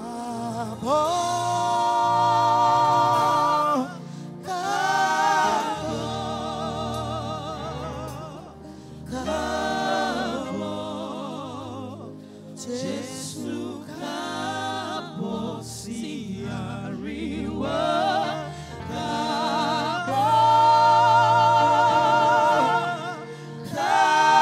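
Live gospel music: a woman singing slow phrases of long held notes with a wide vibrato, over sustained low instrumental chords.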